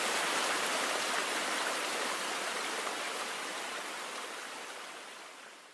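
Stream water running, a steady rush that fades out towards the end.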